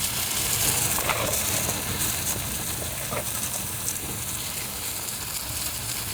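Shrimp sizzling in a pan over a wood fire: a steady frying hiss with a few sharp pops.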